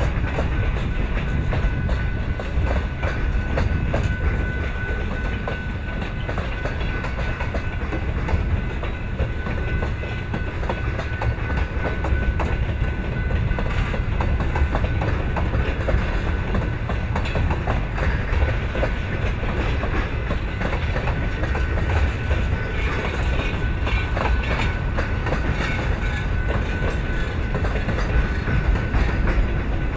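Freight train cars rolling past at track side: a steady low rumble with the clickety-clack of steel wheels over rail joints, and a faint steady whine above it.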